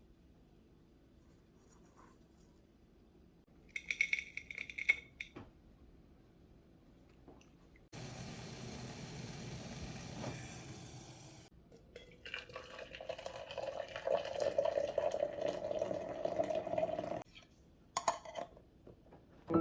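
Kitchen sounds: dishes clinking briefly, then tap water running in two spells of a few seconds each, the second one filling a container. A few more clinks come near the end.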